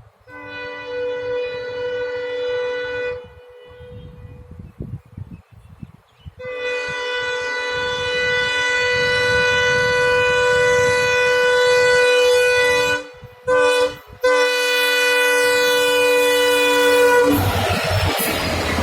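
Horn of a WAP-4 electric locomotive hauling an express through a station at speed. A blast of about three seconds is followed by a low rumble, then one long blast of about ten seconds, broken briefly twice near its end. Near the end comes the loud rush of the train going past close by.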